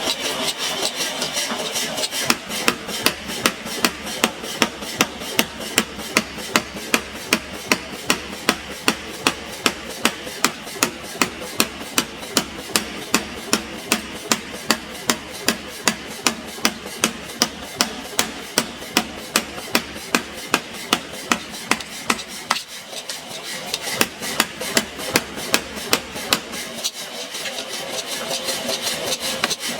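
Forging hammer striking metal on an anvil in a steady rhythm, about two to three blows a second, over a steady hiss. The blows break off for a moment about two-thirds through, then resume, quicker and lighter near the end.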